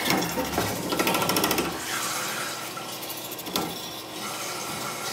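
Toilet tank refilling through its fill valve as the water supply is turned back on: a steady rush of water, with a fast rattle over the first couple of seconds and a single click a little after the middle.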